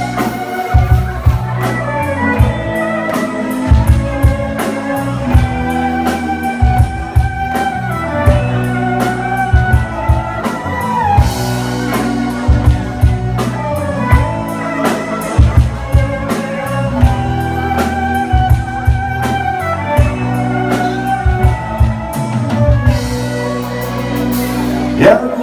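Live rock band playing an instrumental passage: electric guitar and violin over a drum kit, with no vocals yet.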